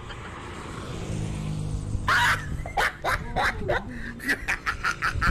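Background music coming in with a steady low tone, under a quick run of short laughing bursts that starts about two seconds in.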